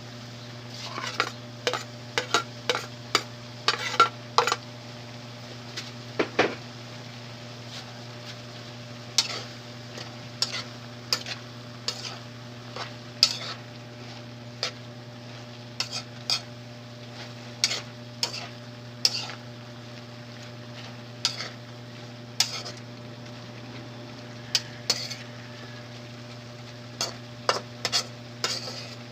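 Metal utensil stirring and scraping in a cooking pan of paklay (pork innards), with irregular sharp clinks and scrapes against the pan. A steady low hum runs underneath.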